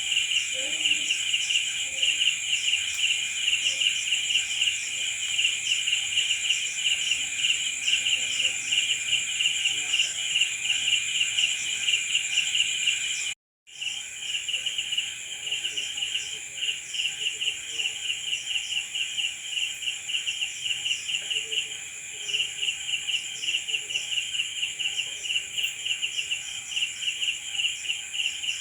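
Crickets chirping in a continuous chorus: fast repeated pulsed chirps over a steady high trill. The sound cuts out completely for a split second about halfway through, then resumes.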